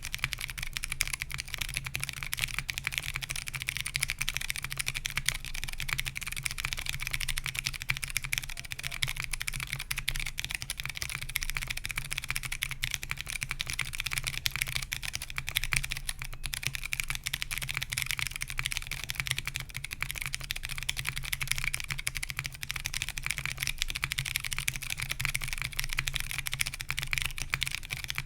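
Continuous fast typing on a top-mount Merisi Works Sessantacinque mechanical keyboard with stock Kailh Box Mute Jade switches on a POM plate and CRP R4 keycaps. Dense, steady key clicks with no pause.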